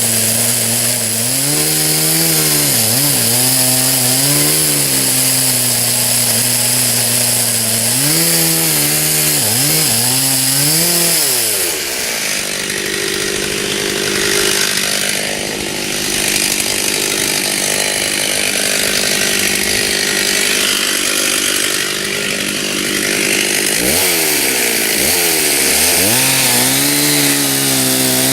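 Stihl chainsaw cutting into a tree trunk, its engine pitch dropping and recovering repeatedly as it bogs under load. It settles into a steadier stretch of cutting in the middle, then the pitch swoops down and back up near the end.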